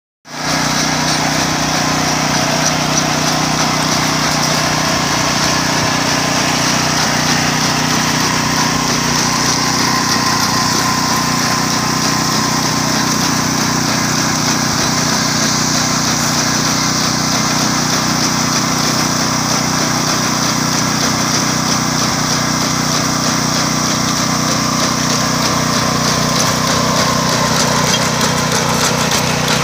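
Small engine of an Iseki PP4 rice transplanter running steadily at an even speed.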